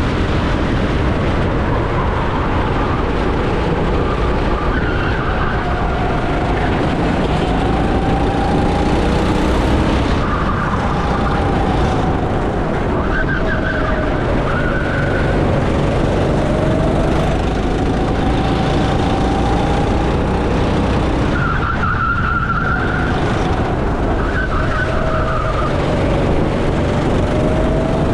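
Go-kart engine at racing speed, its pitch rising as it accelerates and falling as it lifts for corners, several times over, over a steady noisy rumble.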